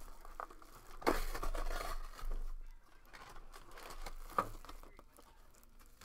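A trading card pack's wrapper crinkling and tearing as it is opened by hand. The rustle is loudest about a second in, and there is a single sharp tap a little past the middle.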